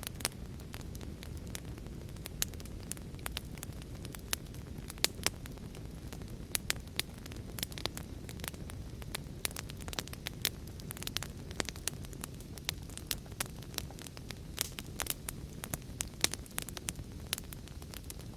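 Wood fire burning in a fireplace: irregular sharp crackles and pops over a steady low rumble of the flames, with a few louder pops scattered through.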